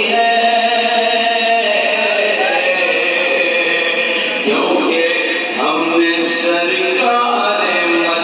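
A man singing a naat, an Urdu devotional poem in praise of the Prophet, into a hand-held microphone, in long held, melodic lines.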